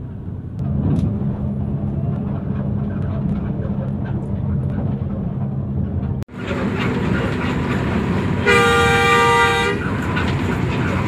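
Inside a coach bus cruising at about 107 km/h: a steady low engine drone with road roar. Near the end a horn sounds once for a little over a second, a chord of several tones.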